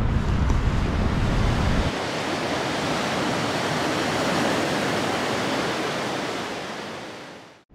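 Rough sea surf washing in with high, strong waves, a steady rush of noise. Wind rumbles on the microphone for about the first two seconds, and the sound fades out near the end.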